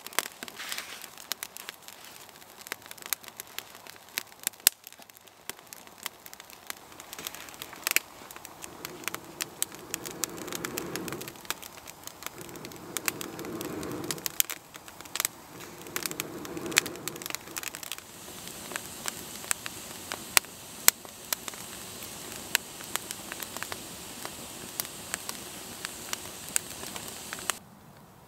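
Wood campfire burning with steady crackling and frequent sharp pops, fed with kindling and bigger pieces including some wet bark.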